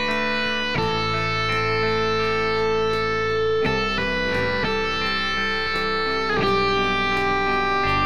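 Background music: a guitar playing sustained chords that change about every three seconds.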